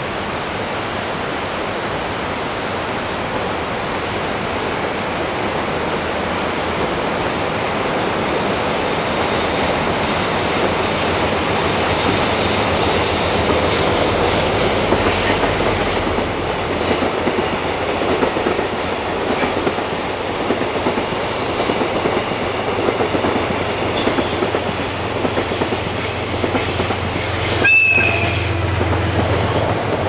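Long freight train of container wagons (the onion train) rolling past on a curving track, its wheels clattering and squealing, growing louder over the first half. A brief sharp wheel squeal comes near the end, over the steady rush of a river.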